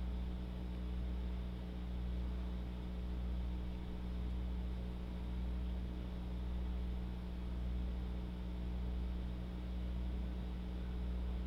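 Steady electrical mains hum with a faint hiss underneath, its level swelling and easing gently every second or two.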